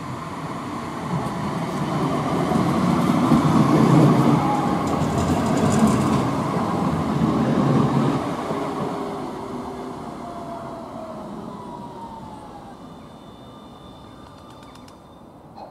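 A Croydon Tramlink tram passes close by on its rails. The rumble builds to a peak in the middle and then fades as the tram moves off, with a falling whine as it draws away.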